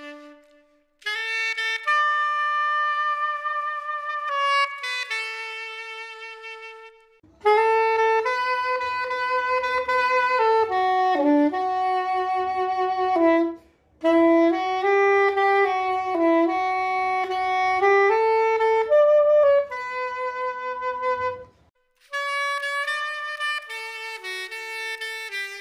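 Soprano saxophone playing a hymn melody in phrases, heard in a demonstration of the same playing recorded raw, with no effects, and with compression and reverb added.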